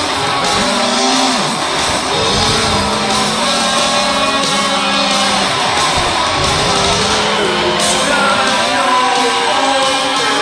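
Loud rock music with guitar and a singing voice, playing steadily as a soundtrack.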